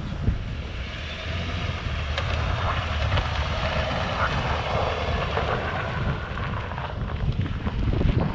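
Vehicle engine running steadily, with a higher whine that swells through the middle few seconds and fades.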